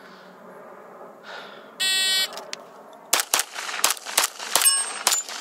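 Electronic shot-timer start beep about two seconds in, then about a second later a rapid string of pistol shots from a Springfield Armory 1911 DS Prodigy, about three a second.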